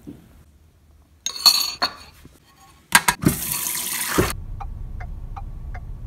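A spoon clinks against a cereal bowl several times. Then a kitchen sink sprayer hisses loudly onto the bowl for about a second. After that a car's steady low rumble comes in, with faint regular ticks about two or three times a second.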